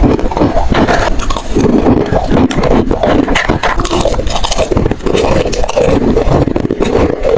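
Hard ice and freezer frost being bitten and chewed close to the microphone: a dense, unbroken run of crackling crunches.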